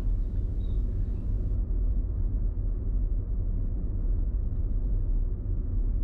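Car driving, a steady low rumble of road and engine noise.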